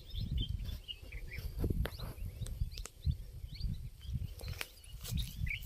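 Small birds chirping in quick, short high notes, over a fluctuating low rumble, with a few sharp clicks.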